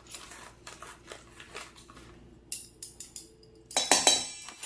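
Kitchen utensils tapping and clinking against a mixing bowl as baking soda is spooned into dry flour mix: scattered light clicks, then a cluster of louder clinks near the end.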